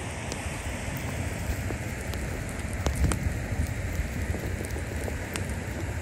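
Steady rushing wind noise with a low rumble, with scattered sharp ticks and crackles, the loudest pair about three seconds in.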